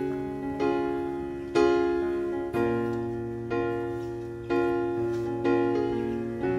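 Background piano music: a gentle piece of sustained notes and chords struck about once a second, each fading before the next.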